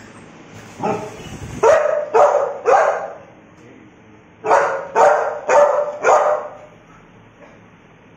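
A dog barking in two runs of about four barks each, the barks about half a second apart, with a pause of over a second between the runs.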